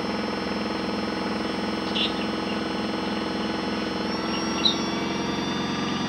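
Miele W1 toy washing machine's small motor spinning an unbalanced load of water, a steady whir with several tones; a higher whine joins about four seconds in. Two short high chirps, about two seconds in and near the end.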